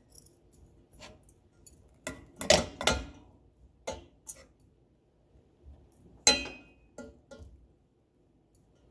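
Kitchen utensils and dishes clinking and knocking during food preparation: a few scattered light taps, a cluster of sharper knocks about two and a half seconds in, and one sharp clink that rings briefly about six seconds in.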